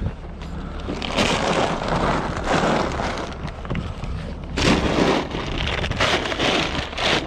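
Crinkling and rustling of plastic feed bags being handled and shifted in a pickup bed, in several bursts.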